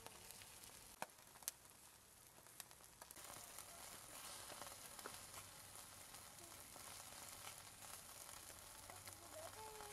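Faint sizzling of food cooking over heat, with a couple of sharp pops about a second in; the sizzle grows a little louder after about three seconds.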